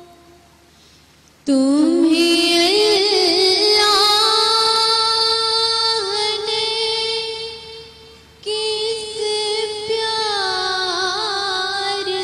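A teenage girl reciting a naat, one solo voice in long held notes with ornamented melodic runs. She comes in about a second and a half in and takes a short breath around two-thirds of the way through.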